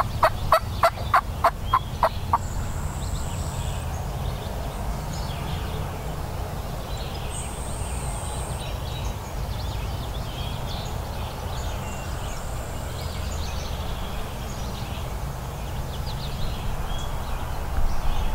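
Wild turkey yelping: a series of loud, evenly spaced notes, about four a second, that stops a couple of seconds in. After that, a steady low rumble with faint songbird chirps.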